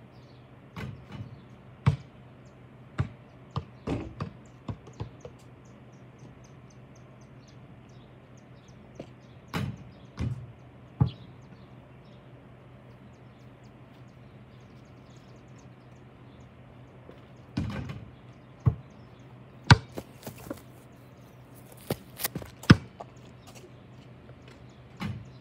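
A basketball bouncing and striking the hoop's backboard and rim: sharp thuds in several bursts with pauses between, over a steady low hum.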